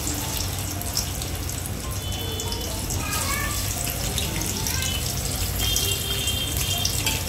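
Sliced onions sizzling in hot oil in a deep pot, a steady hiss as they start to fry.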